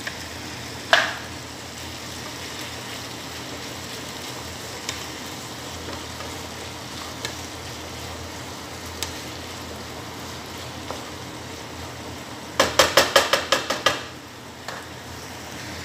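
Chicken, zucchini and grated carrot sizzling steadily in a frying pan while a spatula stirs them, with a few light knocks against the pan. Near the end, a quick run of about ten louder taps of the utensil on the pan.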